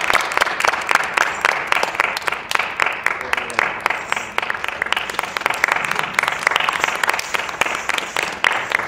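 Audience applauding steadily: a dense, continuous patter of many hands clapping.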